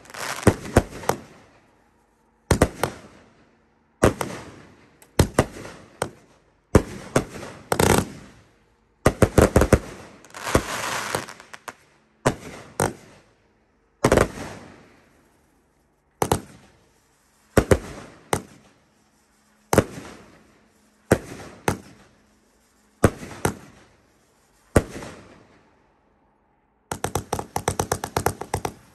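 Consumer aerial fireworks firing: a run of sharp bangs, roughly one every second or so, each dying away after it, with a thicker cluster of reports partway through. Near the end comes a rapid volley of shots fired in quick succession.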